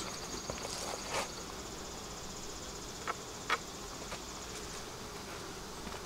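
Honeybees buzzing steadily from an open Langstroth hive crowded with bees, with a few light clicks.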